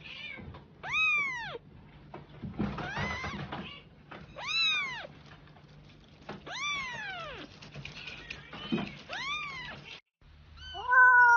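A cat meowing four times, a couple of seconds apart, each long meow rising and then falling in pitch.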